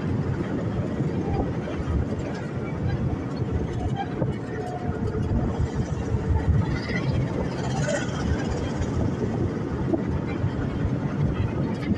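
Steady engine and running-gear rumble from on board a moving military vehicle, heavy in the low end, with wind noise on the microphone.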